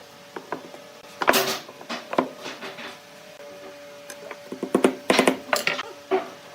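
Wood and tools being handled in a workshop: irregular knocks and clatters, in a cluster about a second in and a busier run around five seconds in, over a faint steady hum.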